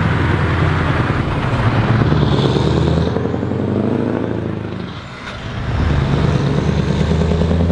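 Scania truck's diesel engine running under load as the tractor unit and tanker trailer drive past. The engine note sags briefly about five seconds in, then picks up again.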